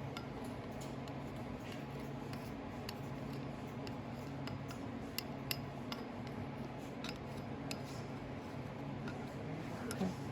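Scattered light metallic clicks and clinks of engine parts being handled as the camshaft is fitted back into a Kawasaki FD620D engine during reassembly, over a steady low hum.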